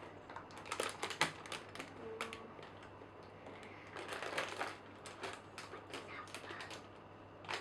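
Quick irregular clicks and rustles in clusters: LEGO packaging, paper booklets and plastic parts being handled.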